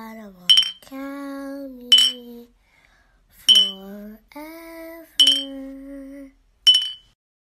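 Intro jingle: sustained, sliding voice-like melodic notes, with a bright bell-like ding about every second and a half, five in all. It stops about seven seconds in.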